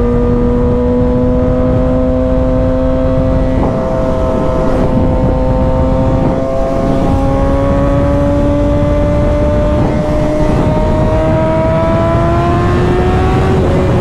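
Kawasaki ZX-6R's inline-four engine, running a 2WDW ECU tune, pulling at high revs under way. Its pitch climbs slowly, with a brief dip about four seconds in, all over steady wind rush.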